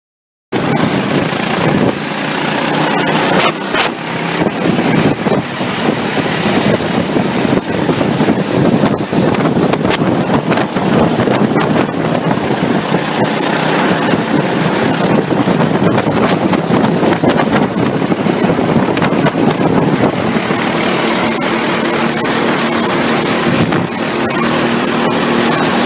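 Racing go-kart engines heard from an on-board camera at speed: a loud, steady, rushing mix of engine and air noise that cuts in abruptly about half a second in. A steadier engine note shows through near the end.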